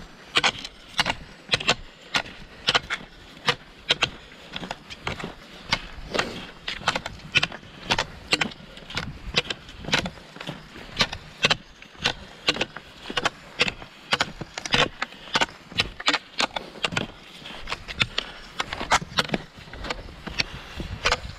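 Classic cross-country skis and poles on thin, crusty snow over a paved path: an irregular run of sharp clicks and crunches, several a second, as the pole tips plant and the skis kick and glide.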